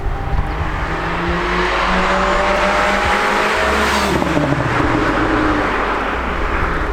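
VW Polo GTI's turbocharged 2.0-litre four-cylinder engine and exhaust pulling hard, the pitch climbing steadily for about three and a half seconds. About four seconds in the revs fall sharply, then it runs on at a lower, steadier pitch.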